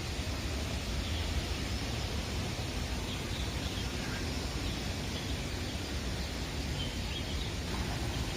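Steady outdoor background noise with a low rumble, and a few faint bird chirps scattered through it.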